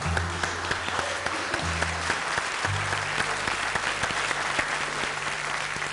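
Applause: steady, dense clapping at the end of a jazz piano trio number.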